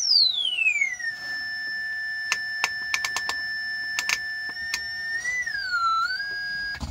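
A test tone from an audio function generator played through a speaker, swept down by hand from a very high pitch to a steady whistle in the first second. It holds steady, then wobbles and dips a little lower near the end before settling. A series of sharp clicks from the oscilloscope's rotary timebase switch being turned sounds over the middle of it.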